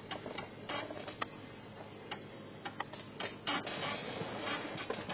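Amiga 1200 floppy drive reading the Workbench 3.1 install disk during a file copy: irregular clicks and ticks of the drive head stepping, busier about three seconds in.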